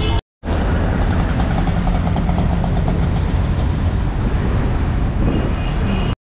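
Auto-rickshaw ride in city traffic: the three-wheeler's small engine running with road and traffic noise, heard from the passenger seat. The sound cuts out for a moment twice, just after the start and near the end.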